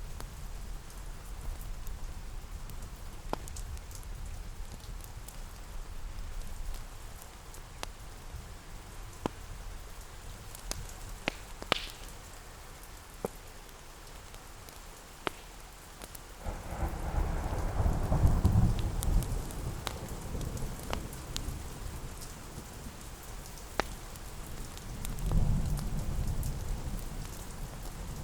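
Steady rain with scattered sharp crackles, and two rolls of thunder rumbling, the first a little past halfway and a shorter one near the end.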